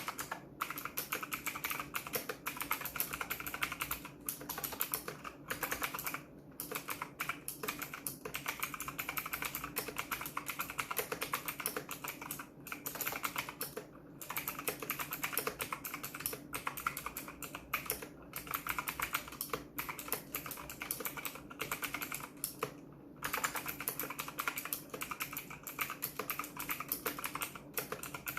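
Imperion Mech 10 mechanical keyboard with clicky Kailh Blue switches being typed on fast, a rapid stream of keystroke clicks broken by short pauses every few seconds.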